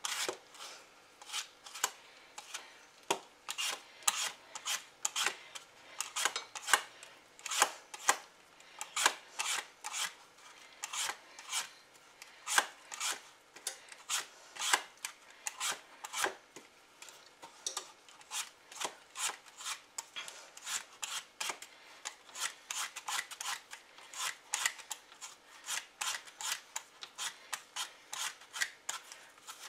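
Hand vegetable peeler scraping the skin off a Granny Smith apple in quick repeated strokes, about two a second.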